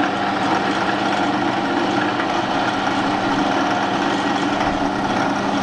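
JIB 250 16VL drill press running with its variable-pulley belt drive exposed: steady electric motor hum with the whir of the belt and split pulleys, even in pitch. The variator has just been shifted toward the higher spindle speed.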